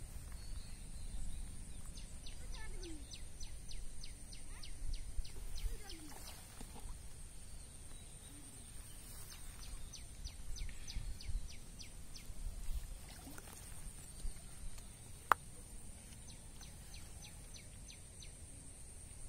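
Rural outdoor ambience: low rumble on the microphone, a steady high-pitched whine, and three bouts of a rapid ticking call at about five ticks a second from a small animal. A single sharp click sounds about fifteen seconds in.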